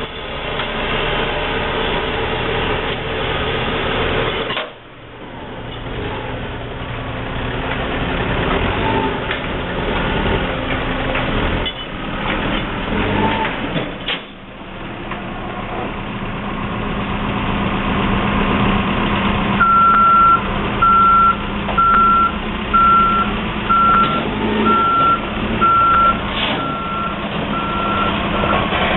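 Heavy construction machinery engine running steadily; about two-thirds in, a vehicle's reversing alarm starts beeping about once a second.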